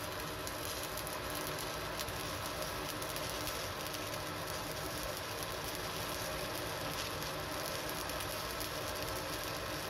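Stick (SMAW) welding arc crackling steadily as a flux-coated electrode is weaved from side to side on a fill pass around steel pipe at 115 amps.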